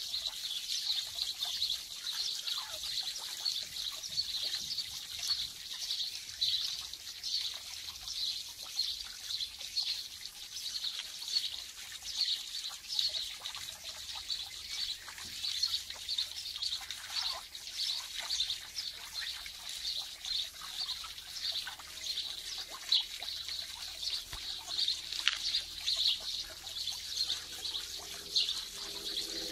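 Birds chirping in quick, high-pitched, continuous twitters.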